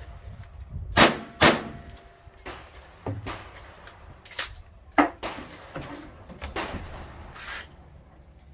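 Two pistol shots fired about half a second apart, about a second in, each with a short ringing tail. Several quieter knocks and clacks follow over the next few seconds.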